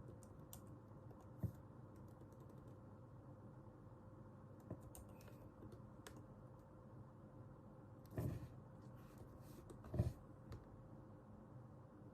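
Occasional keystrokes on a computer keyboard, a few scattered taps with a couple of louder, deeper knocks later on, over a faint steady room hum.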